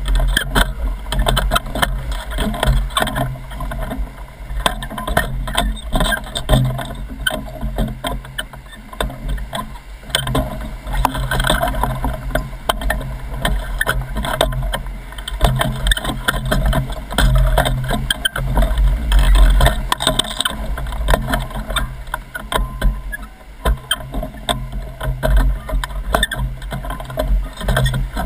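Whitewater of a Class IV river rapid rushing loudly around an inflatable raft, with a heavy low rumble and many sharp splashes of waves hitting the raft.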